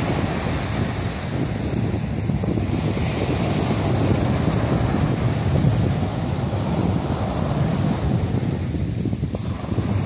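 Small waves breaking and washing up onto a sandy beach, a continuous wash of surf with gentle swells in level, with wind buffeting the microphone.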